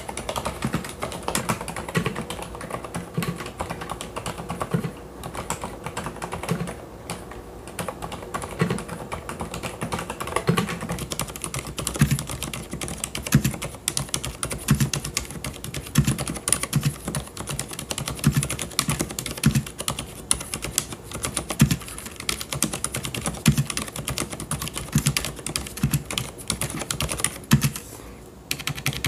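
Hansung GK993B mechanical keyboard with low-noise (silent) red switches being typed on continuously: fast, irregular, dull keystrokes with a brief pause near the end.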